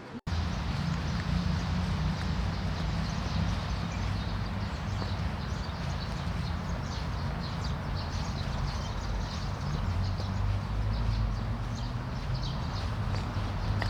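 Birds chirping: many short high calls, thickening from about four seconds in, over a steady low rumble.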